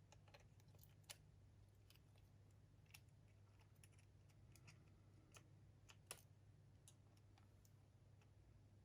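Near silence with faint, scattered small clicks and taps of small parts being handled as a cassette player's head block is fitted back, the clearest about a second in and about six seconds in, over a low steady hum.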